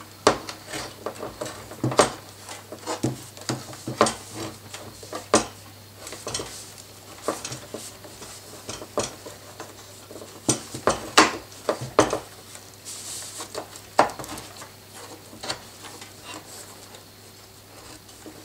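A machined ballast weight of about 640 g being pushed and wiggled by hand into the plastic chassis of a Huina 1580 RC excavator. Irregular clicks, knocks and scrapes come as the weight, a tight fit, catches against the chassis.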